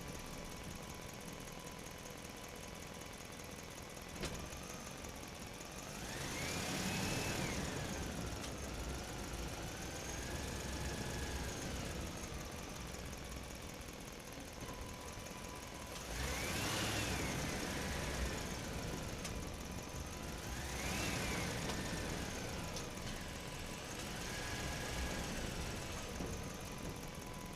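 A running engine or motor sound that swells four times, each time with a whine that rises and falls in pitch, like revving.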